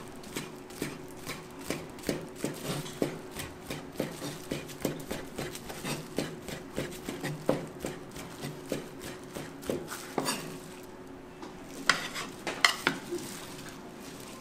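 A metal utensil knocking and scraping against cookware in a run of clinks, about two to three a second, with a brief burst of brighter clatter near the end. A faint steady hum runs underneath.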